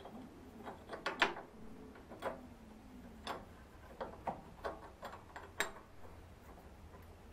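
Small metal hand tool clicking and tapping against a metal bracket being fitted to a bandsaw frame: about a dozen light, irregular clicks, the sharpest about a second in and again near six seconds, over a faint steady low hum.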